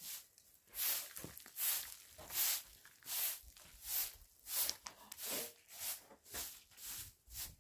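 Footsteps scuffing on a gritty cement-plastered floor at a steady walking pace, a little over one step a second.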